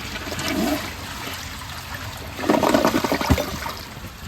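2011 Glacier Bay toilet flushing, water rushing and gurgling as it pulls down a rag and a washcloth, with a louder surge of gurgling about two and a half seconds in that ends in a short low thump. It struggles a bit but clears the load.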